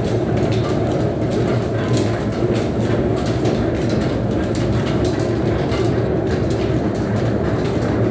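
Belt-driven line-shaft transmission running a Wanderer horizontal milling machine: overhead pulleys and flat belts turning with a steady rumble and a light, rapid clacking.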